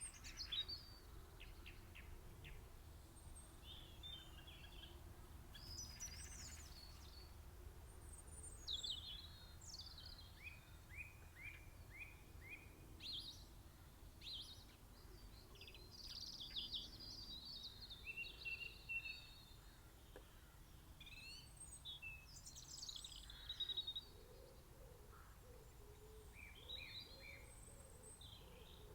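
Several small songbirds singing and calling over one another, with quick chirps and trilled phrases. A faint low rumble runs underneath, and lower repeated calls come in near the end.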